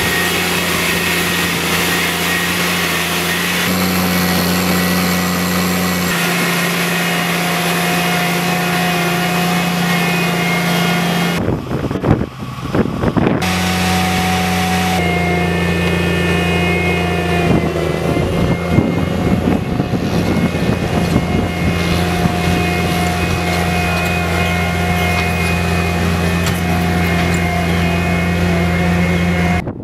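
Diesel engine of a BRON 450 tracked drainage plow running steadily under load, a low, even drone that shifts abruptly a few times, with a brief break about twelve seconds in. Irregular clatter joins it from about eighteen to twenty-two seconds in.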